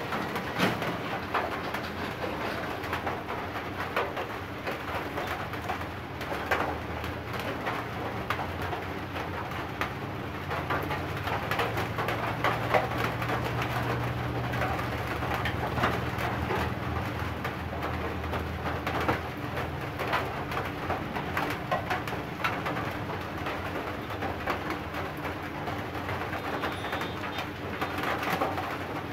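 Scattered light clicks and taps from handling a CRT TV chassis, its wiring and a small circuit board, over a steady low background sound.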